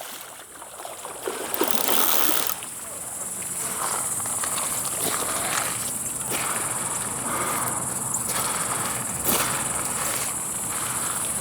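Insects, crickets or similar, droning in one steady high-pitched band, with rustling and handling noise over it, loudest about two seconds in.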